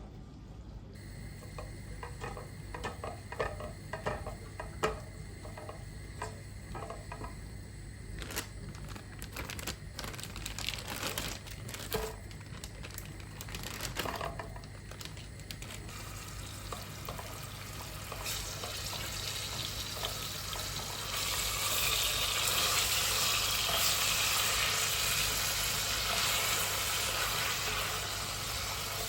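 Kitchen sounds: scattered clicks and knocks of utensils, then a steady sizzling hiss that grows louder about twenty seconds in, over a low steady hum.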